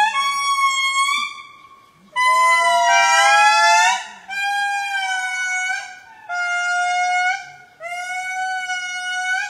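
Lemur calls: a run of long, clear, steady-pitched calls, each a second or more long with short gaps between, some rising slightly in pitch. Around three seconds in, two calls overlap.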